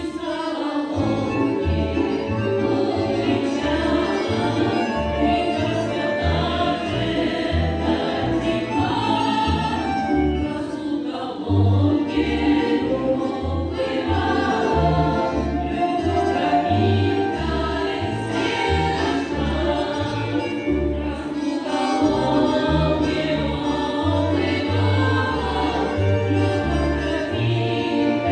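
Women's folk choir singing a Russian song in harmony, accompanied by an accordion playing a steady rhythmic bass and chords.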